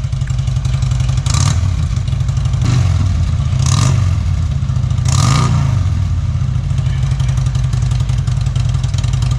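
Chevy Malibu's engine running and being given a few brief revs around the middle, then settling back.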